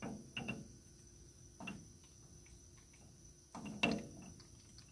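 Light clicks and knocks of a ServoLock spindle torque tool being seated on a moulder's spindle nut and turned by hand. A few scattered ticks come first, then a short cluster with one sharper click a little before the end.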